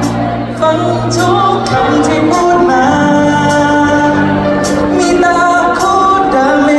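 A male singer singing a pop song into a handheld microphone over a backing track, played loud through a concert hall's sound system.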